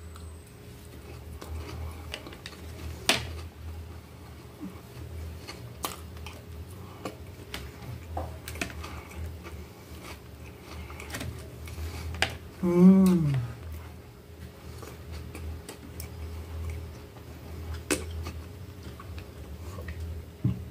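Close-miked eating: chewing and scattered sharp clicks of a fork and spoon against the plate over a steady low hum. About 13 s in there is a brief, low, falling "mmm".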